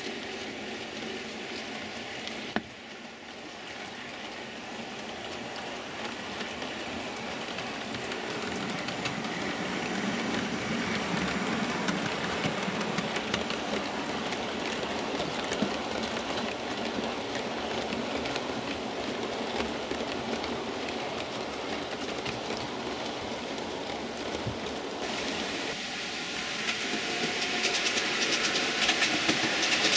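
Model railway train running on the track: wheels rattling and clicking over the rail joints, growing louder as a rake of coaches passes close. Near the end a different, brighter rattle of another train takes over.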